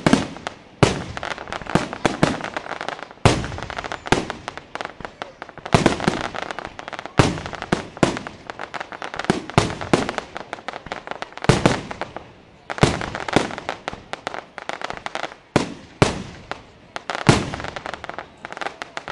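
Aerial fireworks: shells bursting one after another in a steady barrage of sharp bangs, several close together at times, with crackling between the louder reports.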